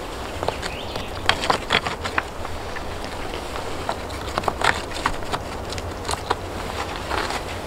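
Stones clacking and knocking against each other as they are handled and set in a dry stone wall: irregular sharp clacks, several in quick clusters.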